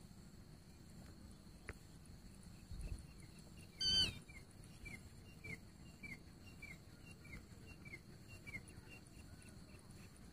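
Grey francolin calling: one loud, harsh call about four seconds in, followed by a steady run of short falling notes, a little under two a second, fading near the end.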